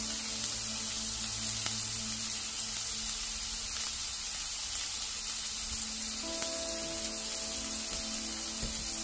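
Smash burger patties sizzling steadily in a hot cast iron skillet.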